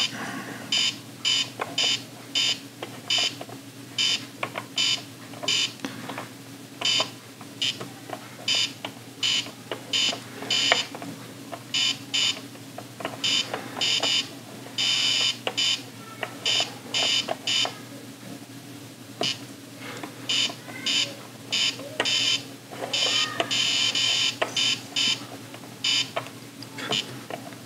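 Etch A Sketch Animator giving short, high-pitched electronic beeps in quick, irregular runs as its drawing knobs are turned, with pauses between the runs. A steady low hum lies underneath.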